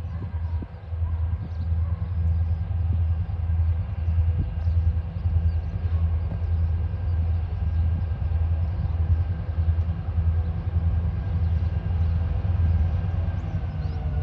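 TasRail diesel locomotives 2054 and 2051 approaching with a coal train, their diesel engines running with a deep, pulsing hum that beats about twice a second.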